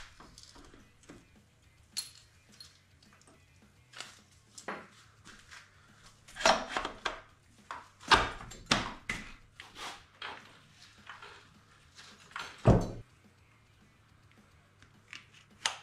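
Irregular clicks, knocks and clunks of parts and tools being handled in a small room, with one heavy thunk near the end.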